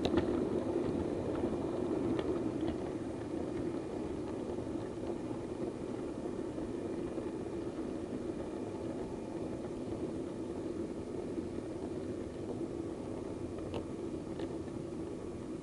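Model DMU running along the track: a steady low rumble that eases slightly, with a few light clicks near the start and near the end.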